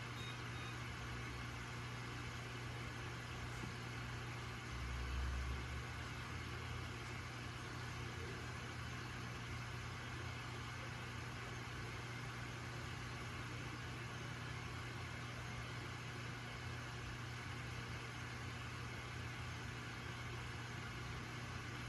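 Steady low hum and hiss of running aquarium equipment, with a short low thud about five seconds in.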